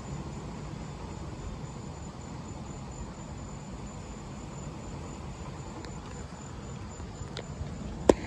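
Crickets chirping in a steady, even high pulse over a low rumble of wind. One sharp knock comes just before the end.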